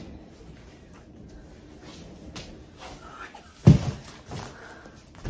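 Heavy cardboard box holding a 7.5-foot artificial Christmas tree being pushed across a wooden floor with a low scraping rumble and a few light knocks, then a loud thump about three and a half seconds in as it comes to rest.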